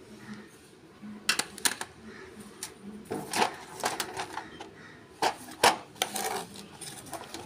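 Colour pencils and their box being handled, giving a string of irregular sharp clicks and knocks as the pencils tap and rattle against each other and the box.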